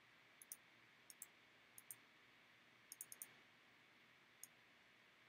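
Faint computer mouse clicks, mostly in quick pairs of press and release: three pairs in the first two seconds, a quick run of four about three seconds in and a single click near the end, over a low steady hiss.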